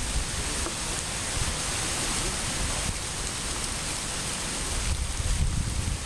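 Waterfall rushing in a steady hiss, with low rumbles at the start and again about five seconds in.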